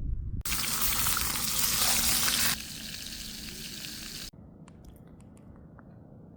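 A loud, even hiss like frying or a gas burner starts abruptly and drops in level about two seconds later. It cuts off sharply a little past the middle, leaving faint background noise with a few light clicks.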